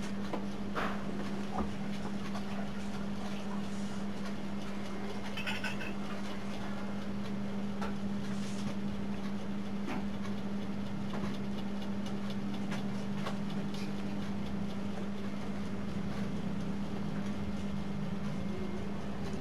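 Steady low electrical hum with a few faint clicks, and no programme sound from the CRT television although its volume is turned up: the set's audio has failed.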